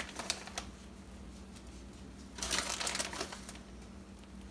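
Plastic bag of shredded cheese crinkling and rustling in the hand as cheese is shaken out onto an omelette in a skillet: crackly clicks at the start, then a second burst of rustling a little past halfway. A faint steady hum underneath.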